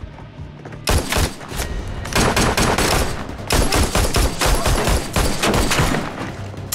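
Gunfire in a shootout: a dense volley of rapid shots that breaks out about a second in and goes on with only brief pauses.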